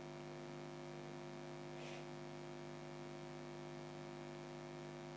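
Steady electrical hum with a background hiss, holding one even level throughout, with a faint brief noise about two seconds in.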